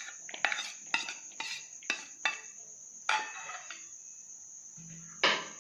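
A spoon knocking and scraping against a steel bowl as chopped carrot is tipped out into a plastic bowl: a run of short sharp clicks, with a louder knock near the end. Crickets chirr steadily behind.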